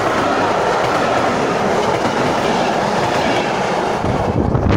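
ČD class 854 'Katr' diesel railcar and its coaches passing close at speed: a loud, steady rush of wheels on the rails. The low rumble grows strongest near the end as the last coaches go by.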